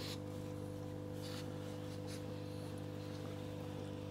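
Steady electrical hum of an aquarium pump running, with a few faint brief clicks near the start and about a second in.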